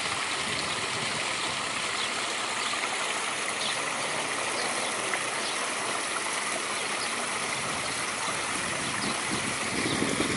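Steady rushing noise, like running water, with no change in level throughout.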